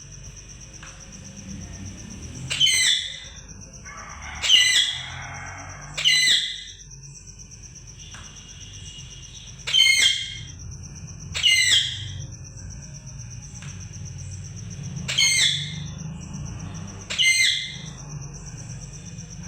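Pet parrot screeching: seven loud, harsh calls, each under a second long, spaced one to four seconds apart.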